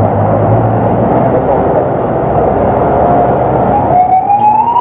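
A bus drives past close by on a wet road, its engine hum and the hiss of its tyres through water loud and steady. About four seconds in, a siren starts, its wail rising in pitch.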